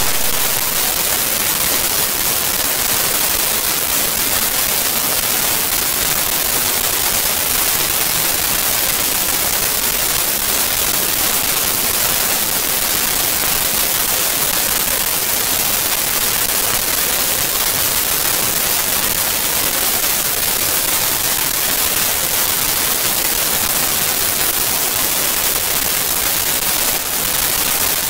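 Steady, loud hiss like static or white noise, even throughout and strongest in the high end, with nothing else heard over it.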